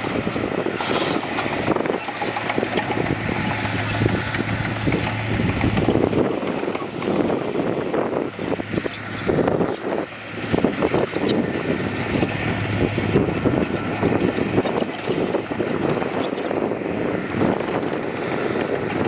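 Heavy diesel construction machinery running, with a steady low engine hum under rough mechanical noise.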